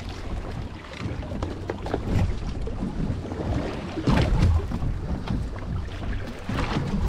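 Wind buffeting the microphone over water sloshing against a boat's hull. The loudest splashing comes about four seconds in, as a hoop net full of ballyhoo is lifted out of the water.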